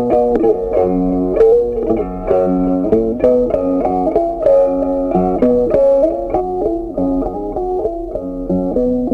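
Background music: a plucked guitar tune, its notes changing several times a second.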